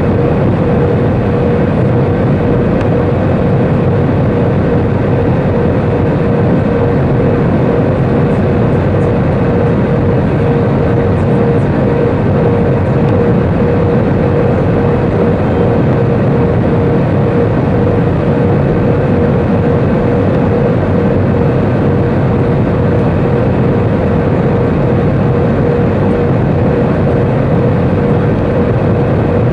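Jet engine and airflow noise inside an Airbus A320's cabin, heard from a seat over the wing on the descent to landing: a loud, unchanging rush with a steady droning tone running through it.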